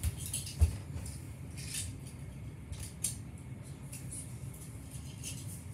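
Small die-cast toy cars being handled: scattered light clicks and rustles, with a sharper knock about half a second in.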